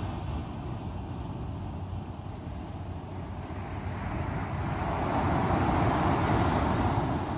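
Ocean waves breaking on the shore: a steady low rumble of surf, with a wave building about four seconds in, washing loudest near the end, then easing off.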